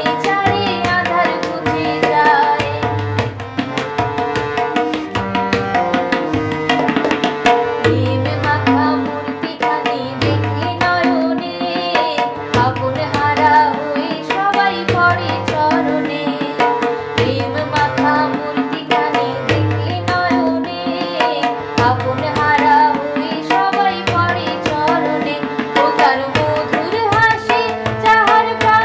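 Bengali devotional song: a woman singing a melody over tabla, with a steady rhythmic drum pattern underneath.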